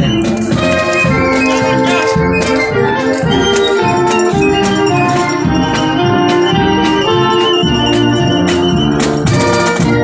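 A marching band playing a tune: sustained melody notes over a steady beat of marching drums, with cymbal crashes.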